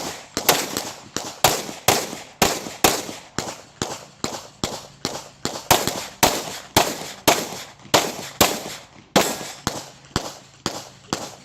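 Open-class competition pistol fired in rapid strings during a USPSA stage, about two to three shots a second, often in quick pairs with short pauses between targets.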